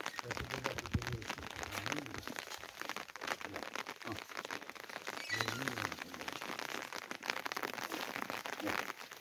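Steady rain pattering on a surface, a dense crackling patter of many small drops.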